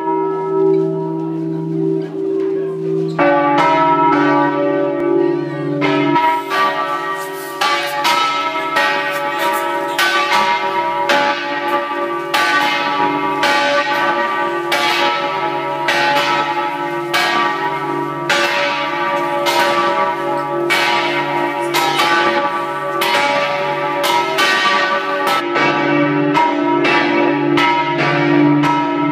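Large church bells of St Mark's Campanile pealing at close range from inside the belfry, loud. A deep hum lingers at first, then fresh strikes come from about three seconds in, one or two a second, overlapping with one another.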